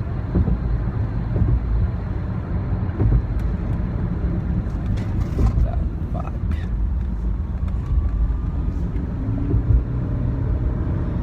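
Steady low rumble of road and engine noise inside a car cruising on a freeway.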